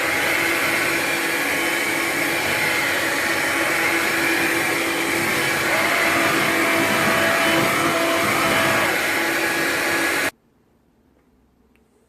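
Hoover LiNX cordless stick vacuum running steadily while it picks up spilled coffee grounds, then switched off about two seconds before the end, its motor noise stopping suddenly.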